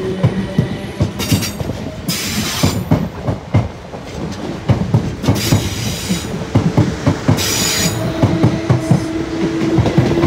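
South Western Railway electric multiple units, a Class 450 and a Class 455, pulling out side by side with wheels clattering over the rail joints and pointwork. A steady motor tone can be heard at the start and again from about eight seconds in, with several short high-pitched bursts from the wheels along the way.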